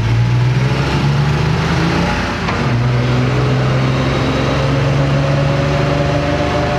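Old pickup truck's engine running on the road, heard from inside the cab. The engine note dips and breaks briefly about two and a half seconds in, then picks up again and climbs slowly.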